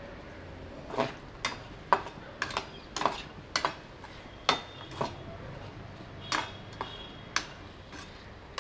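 Flat metal spatula stirring cubed boiled raw banana in a metal kadai, scraping and clinking against the pan about a dozen times at an irregular pace, a few strikes leaving a short metallic ring.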